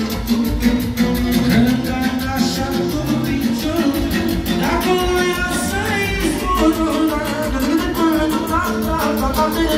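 Live amplified band playing a fast Romani dance tune (joc țigănesc) with a steady, quick beat, and a male singer's voice coming in through a microphone.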